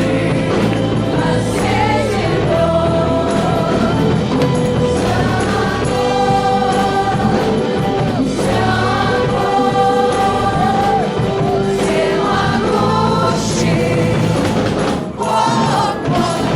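Church praise and worship music: a group of voices singing a gospel song over full band accompaniment.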